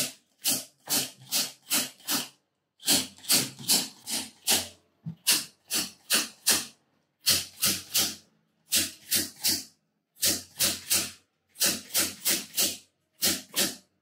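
Chiropractic activator adjusting instrument firing against the thoracic spine: short, sharp snaps about two to three a second, in runs of several with brief pauses, as the joints are adjusted one after another.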